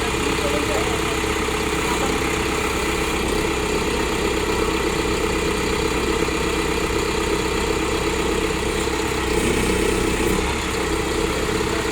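LiuGong 764A backhoe loader's diesel engine running steadily at idle.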